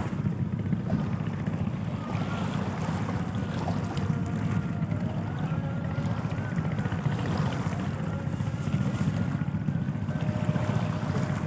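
Steady low rumble of a large passenger ship under way, mixed with wind buffeting the microphone.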